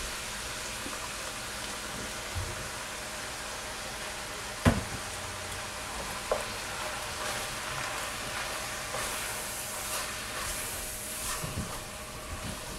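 Browned ground beef sizzling in a pot while barbecue sauce is squeezed onto it, then a wooden spoon stirring and scraping through the meat. One sharp knock about a third of the way in is the loudest sound, with a lighter knock soon after.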